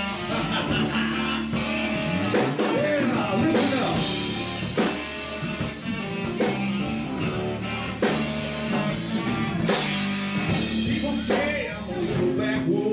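A country-rock band playing: electric guitar over a steady drum kit beat, with some bent guitar notes.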